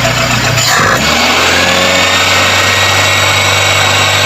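Toyota Corolla 2E carbureted engine running under the hood, its note changing sharply about a second in as the throttle is worked, then holding steady. The carburetor dashpot has been set touching the throttle lever.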